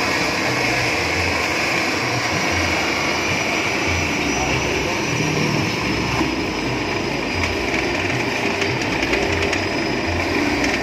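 Electric sago grating machine running, its spiked steel drum rasping a split sago palm trunk section pushed into the hopper by hand. A steady grinding noise with a high whine over it.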